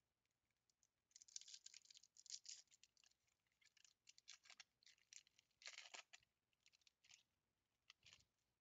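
Foil wrapper of a baseball trading-card pack crinkling and tearing by hand in a string of short, faint bursts, starting about a second in, with the loudest crinkle about six seconds in.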